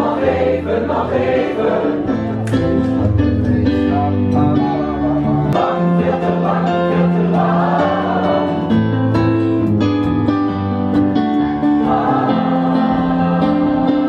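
A group of singers rehearsing a song together, accompanied by an electric keyboard and an acoustic guitar.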